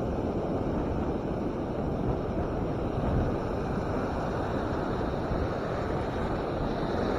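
Ocean surf breaking and washing up the beach, with wind on the microphone: a steady rushing noise.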